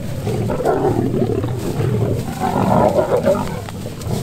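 Lions growling continuously as they squabble over a freshly killed impala during a feeding frenzy.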